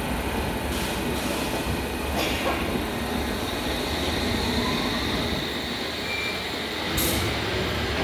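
London Underground District line train pulling out of the platform: a steady rumble of wheels on rail and traction motors, with a faint rising whine and a short hiss about seven seconds in.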